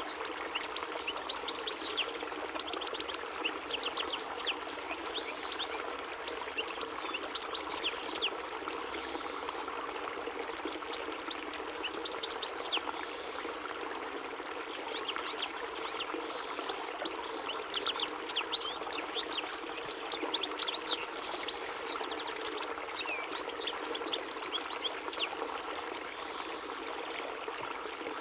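European goldfinch singing: flurries of rapid, high twittering chirps, broken by short pauses, over a steady background rush.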